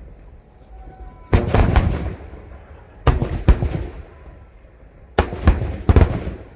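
Aerial fireworks shells bursting in three volleys about two seconds apart. Each volley is a quick cluster of sharp bangs that fades out over a second or so.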